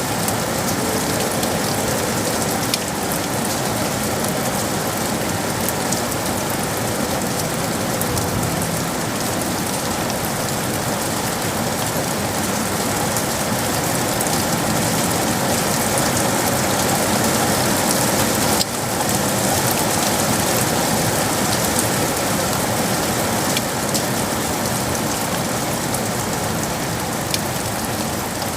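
Steady rain falling on hard surfaces: a dense, even patter with scattered sharper drops.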